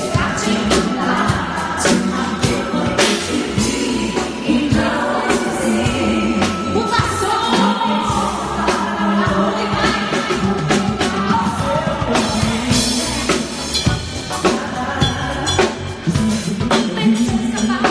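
A woman singing into a handheld microphone over amplified pop music with a drum kit.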